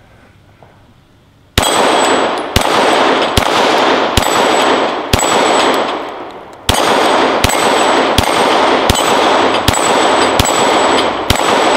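Glock 19 9mm pistol firing 115-grain full-metal-jacket rounds in steady slow fire, about a dozen shots roughly three-quarters of a second apart, each bullet hitting a steel dueling-tree plate that rings with a bright clang. The shooting starts about a second and a half in, with a short pause near the middle.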